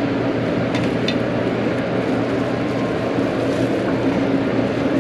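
Steady drone of restaurant ventilation fans, with a low hum and a steady mid-pitched tone running through it. A couple of faint clicks sound about a second in.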